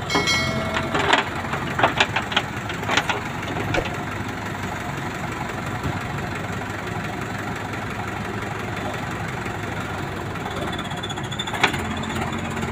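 Diesel engines of a Terex backhoe loader and a tractor running steadily at low revs. A few sharp knocks come in the first four seconds and one more near the end.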